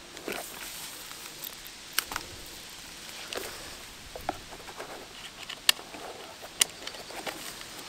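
Sharp clicks and light knocks from a rifle and its gear being handled in a foam-lined hard case: one about two seconds in, smaller ones in the middle, and two louder ones between five and seven seconds.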